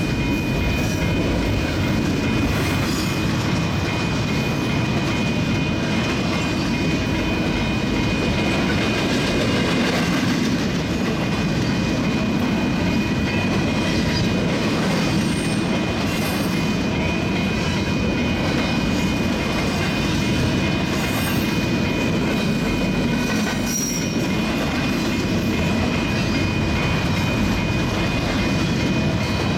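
Double-stack intermodal freight cars rolling past with a steady roar of steel wheels on rail, some clickety-clack, and a thin, steady high wheel squeal.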